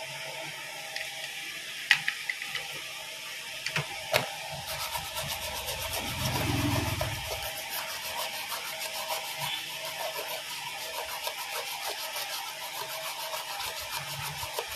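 A stiff brush scrubbing a mobile phone circuit board in fast, scratchy back-and-forth strokes, from about five seconds in, to clear dirt from a board that may be water-damaged. Before that come a few sharp clicks.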